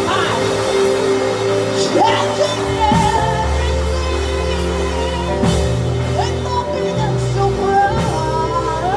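Worship music: sustained keyboard chords over a bass line that changes every few seconds, with a wavering melody line above.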